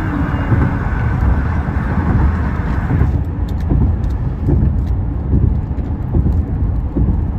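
Road and engine noise heard from inside a car cruising at freeway speed: a steady low rumble with a higher tyre-and-wind hiss that eases off about three seconds in.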